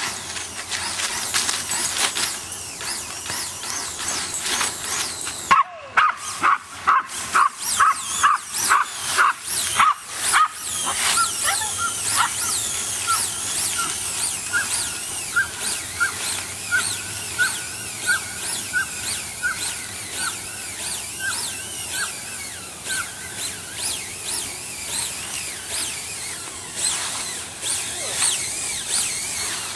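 A dog yelping over and over, a couple of short high cries a second at a steady pitch, from about six seconds in until past twenty seconds, over a continual fast rattling and clicking.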